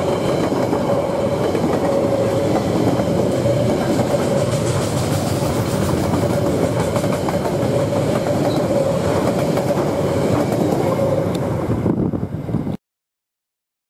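Freight train wagons rolling past on the rails: a steady loud rumble of wheels on track with a faint clickety-clack and a steady whine through it. The sound thins as the last wagon goes by, then cuts to silence about a second before the end.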